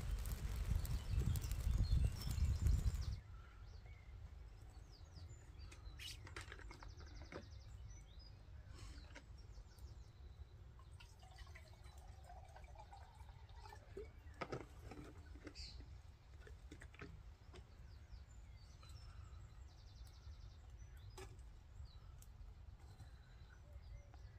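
A wood fire crackling in a small folding twig-burning stove, close to the microphone, with a low rumble, for about the first three seconds. After that it is much quieter: water is poured from a plastic bottle into a pot about twelve seconds in, among light knocks and faint birdsong.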